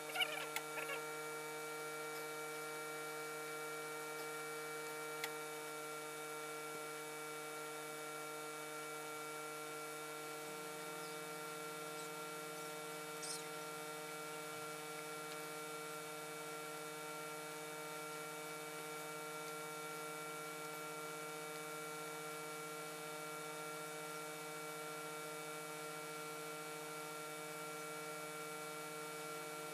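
Steady electrical mains hum made of many fixed tones, unchanging throughout. A short wavering squeak sounds right at the start, and there is a single sharp click about five seconds in.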